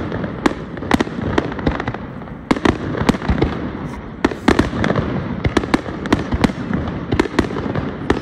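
Aerial firework shells bursting in quick, irregular succession: sharp bangs, often one to three a second, over a continuous rumble and crackle of the display.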